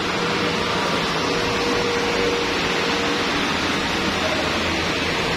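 Steady rushing noise of a gas burner flame burning under a large aluminium steaming pot.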